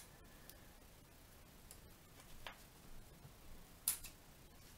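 A few faint clicks and taps as gloved fingers work the display's ribbon-cable connector on a tablet's board, trying to seat it: a soft tap about halfway and a sharper click near the end, with fainter ticks between and little else.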